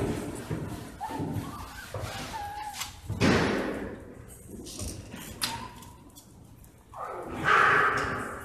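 Thuds and knocks echoing in a large hard-floored room, the loudest a sudden one about three seconds in, with another loud burst near the end.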